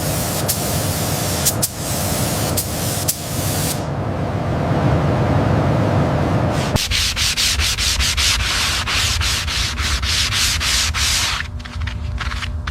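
Sanding: steady abrasive rubbing on the car's bodywork, changing in texture a few seconds in and again about halfway through, then going on in many short strokes.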